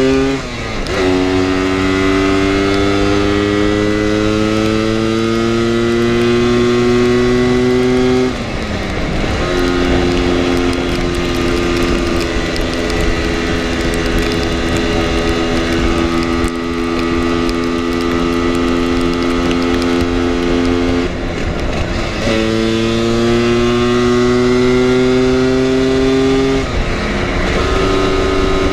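Lambretta scooter's two-stroke single-cylinder engine under way, heard from the rider's seat. The pitch climbs steadily as it pulls in gear and drops at gear changes, about a second in and around eight seconds. It holds steady at cruising speed through the middle, then eases off and climbs again near the end, with wind rush under it.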